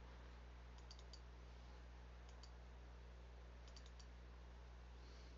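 Faint computer mouse clicks in small clusters of two or three over a low steady hum, near silence otherwise.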